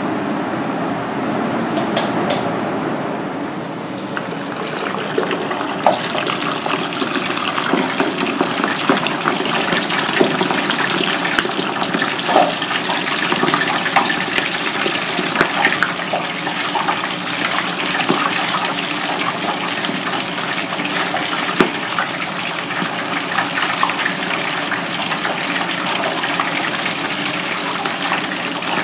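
Whole flour-dusted fish deep-frying in hot oil: dense, steady sizzling and crackling with many small pops, which swells up a few seconds in.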